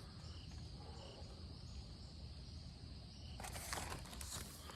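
Quiet room tone with a steady faint hiss, and a brief soft rustle about three and a half seconds in.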